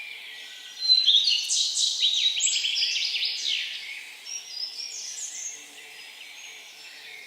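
A songbird singing: a loud, fast song of rapid down-sweeping trilled notes that starts about a second in and lasts about three seconds, followed by a few softer phrases, over a steady background hiss.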